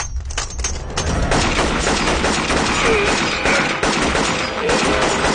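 Sustained gunfire, many shots in quick succession with no break.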